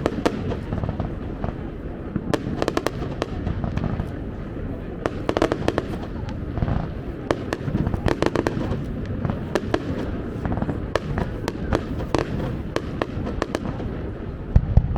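Aerial fireworks display: a steady run of sharp bangs and crackling clusters over a low rolling rumble, with a heavy boom near the end.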